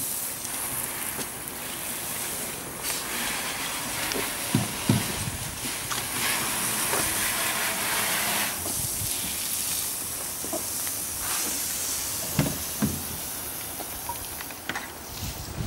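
Water from a garden hose spraying onto a car's bodywork, a steady hiss that swells for several seconds in the middle. A few brief low bumps come twice.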